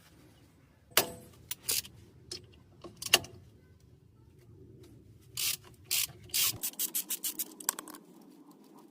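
Hand tools working on steel front-suspension parts: a few separate clinks and scrapes, then a quick run of short scraping strokes about four a second in the second half.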